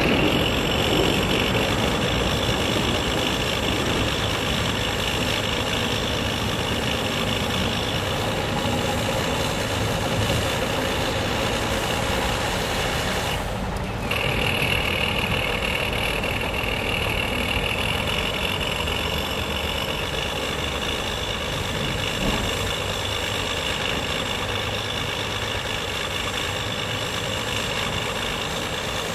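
Synthesized engine sound from a model sound module, played through a small loudspeaker about 20 m away at idle to low throttle, running steadily with a short break in its upper tones about halfway through. Road traffic hums underneath.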